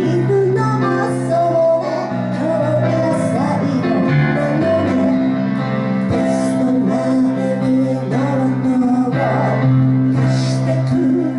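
Singing with piano accompaniment: a piano-and-vocal cover of a Japanese pop song, sung over sustained chords.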